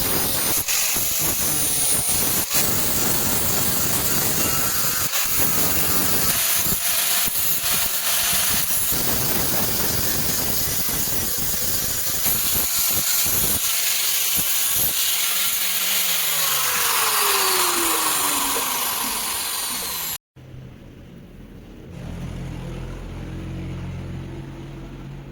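Power grinder grinding steel, a loud, continuous harsh rasp. Near the end its pitch falls as it winds down. About 20 seconds in it cuts off, leaving a faint low hum.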